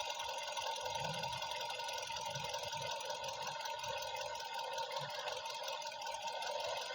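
Hyundai i20 petrol engine idling with a steady mechanical hum. The engine has a misfire: the ECU's ignition-coil driver for cylinder two is stuck on, so that coil gets constant current and has melted.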